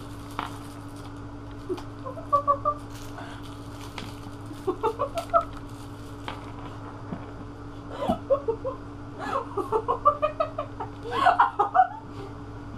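Women giggling in short bursts of pitched laughter, coming thicker and louder in the last few seconds, with a few small clicks and a steady low hum underneath.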